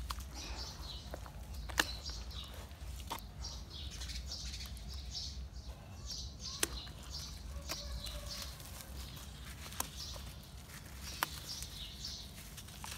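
Wet sand-cement paste squelching and slopping as hands squeeze and dip lumps of it in a bowl of cement slurry, with a few sharp clicks along the way.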